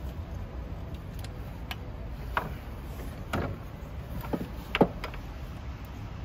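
An ignition coil being fitted into its spark plug well on a Honda L15A engine: a handful of short clicks and knocks as it is worked into place, the loudest a little after the middle.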